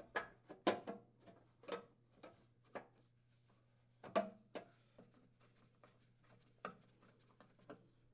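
Sheet-metal receptacle cover being fitted onto a PTAC subbase by gloved hands: about fifteen light, irregular clicks and knocks, the loudest about four seconds in, over a faint steady low hum.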